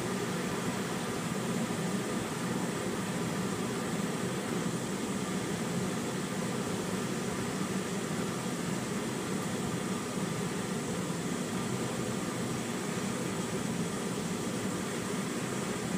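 Gas brazing torch burning steadily, a constant rushing noise, as its flame heats a ladle to melt pewter.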